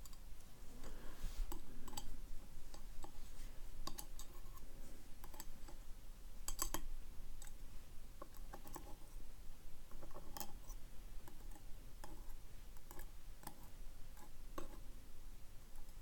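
Tweezers and small lock pins clicking and tapping against a metal pin tray as the pins are sorted into its slots. The clicks are light and irregular, with a couple of sharper ones partway through.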